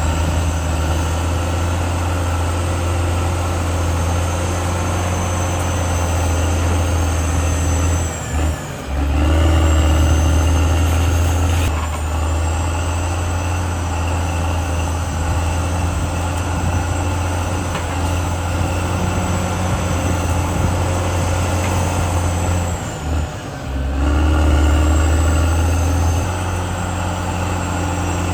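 CAT D6R XL bulldozer working, its heavy diesel engine running steadily under load with a thin high whine over it. Twice, about a third of the way in and again near the end, the engine briefly drops away and then comes back louder.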